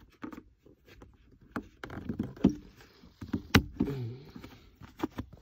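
A string of sharp clicks and knocks with a short creak about four seconds in: the gear lever of a Toyota Tacoma, with a newly fitted leather shift knob, being handled and moved.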